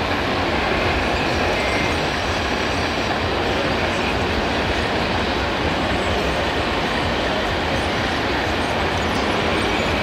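Model RC crawler bulldozer, a scale Caterpillar, running forward with a steady mechanical clatter and rumble from its tracks and drive.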